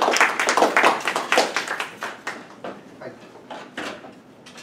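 Small audience applauding, dying away about two seconds in, with a few scattered claps after.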